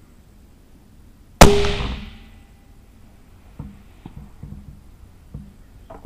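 A single 6.5 Creedmoor rifle shot about one and a half seconds in, its report trailing off over about a second. Several lighter clicks and knocks follow.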